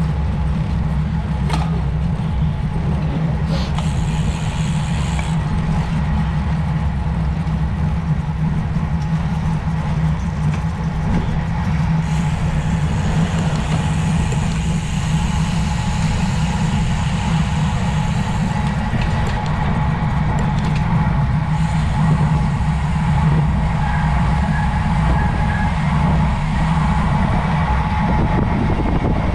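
Steady low rumble of wind and road noise during a road bicycle ride, unbroken throughout.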